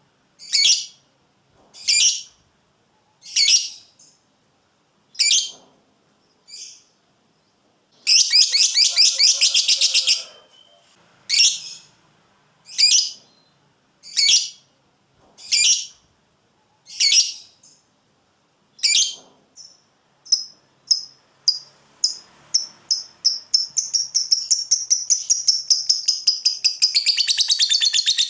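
Lovebird giving sharp high chirps about every second and a half, with a quick two-second rattle about eight seconds in. From about twenty seconds in the chirps come faster and faster and run together into a long continuous chattering trill, the 'ngekek' prized in fighter lovebirds.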